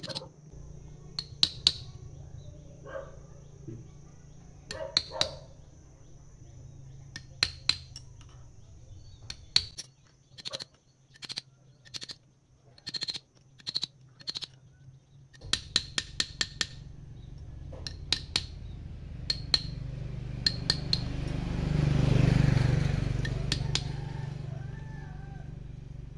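Steel parts of a hydrostatic transmission pump clinking and tapping as a rod and splined coupling are fitted into the pump's splined shafts: a string of sharp metallic clinks, mostly in pairs and short clusters, over a steady low hum. A broad rush of noise swells and fades about 21 seconds in.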